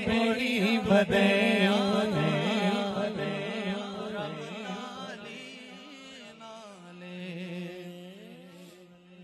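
Devotional Punjabi kalam music: a male voice singing a drawn-out, gliding melody over a steady low drone, with drum beats during the first two seconds. The music fades out steadily.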